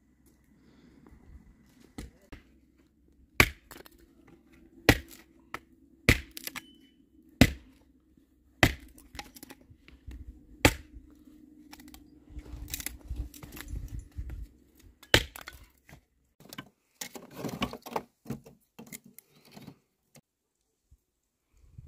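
Chopping: about seven loud, sharp cracking blows, roughly one every second and a half, then a quick run of lighter knocks near the end.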